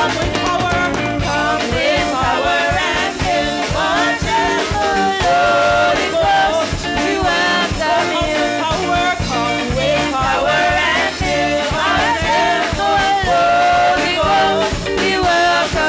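Live praise-and-worship song: women singing into microphones over a drum kit and band, with a steady beat.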